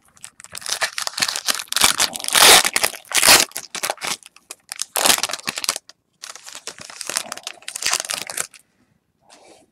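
Foil wrapper of a trading-card pack being torn open and crinkled by hand, a dense crackling in loud spells with a short break about six seconds in, stopping shortly before the end.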